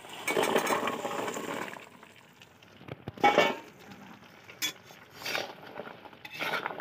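Fried khurma pieces pouring from a steel bowl into frothing sugar syrup in a kadhai, a clattering, sizzling rush for nearly two seconds. Then a metal spatula scrapes and knocks against the kadhai a few times as the pieces are stirred through the syrup.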